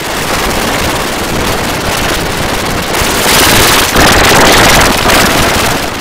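Logo sound pushed through heavy audio effects into a harsh, static-like wash of distorted noise with no clear tune. It grows louder about three seconds in and fades away near the end.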